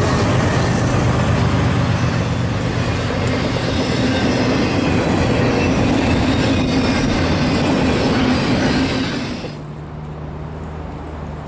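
A train rolling past, with the rumble and clatter of rail cars on the track. About nine and a half seconds in the noise drops away abruptly, leaving a lower steady hum.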